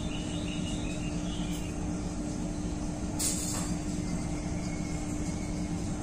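Steady low background rumble with a constant hum, a few faint short chirps in the first second and a brief hiss about three seconds in.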